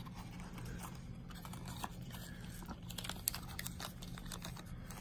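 Black foil blind-bag pouches crinkling and rustling in the hands as Vinylmation blind boxes are unpacked, with scattered small clicks and crackles.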